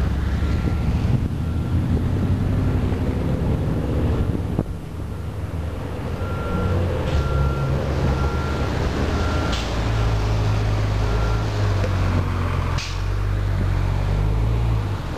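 Low wind rumble on the microphone mixed with the running of a train moving away down the line. In the middle a vehicle's backup alarm beeps at a steady pace for several seconds, and there are a few sharp clicks.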